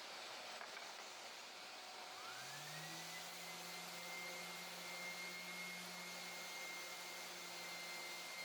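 Power sanding a cherry board with 60-grit sandpaper: a steady hiss, joined about two seconds in by a motor whine that rises in pitch and then holds steady.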